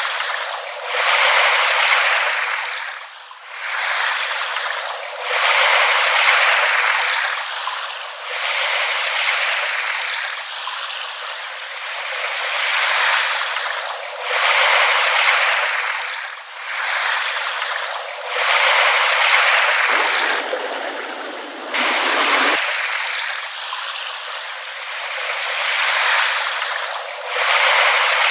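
Small ripple waves lapping at the water's edge, the wash swelling and falling back every few seconds.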